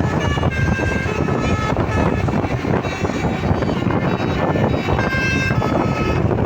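Basuri-type 'telolet' bus horns playing quick melodies of stepped, held notes, in two runs with a pause in the middle. Under them is the loud, steady rumble of the buses' engines and traffic.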